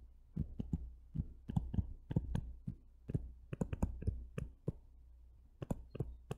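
Stylus tapping and clicking on a tablet's glass screen during handwriting: a run of quick, irregular clicks, with a short pause about five seconds in.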